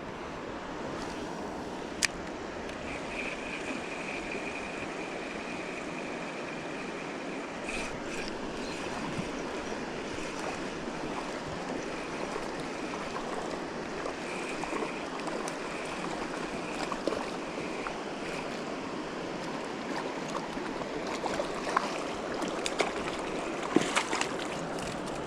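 River current rushing steadily over riffles, with a faint thin high tone now and then and a few sharp clicks near the end.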